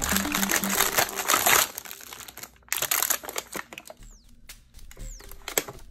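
Plastic snack wrapper crinkling loudly as a bag of fudge-covered peanut butter cookies is pulled open, for about two seconds. Then sparser clicks and taps of the hard clear plastic cookie tray being handled.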